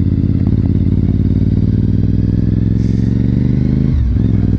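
Honda RC51's 1000cc V-twin engine running under way, its pitch slowly rising as the bike accelerates, with a brief break about four seconds in, like a gear change.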